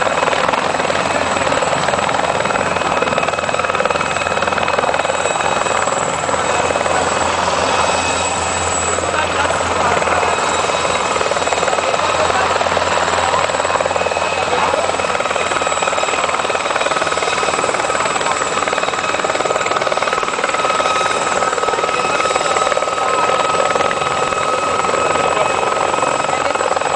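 Military helicopters running steadily at close range: continuous rotor and turbine noise with a thin high whine held throughout.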